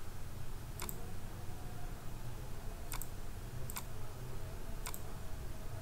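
Four sharp computer mouse clicks at uneven intervals over a low steady hum.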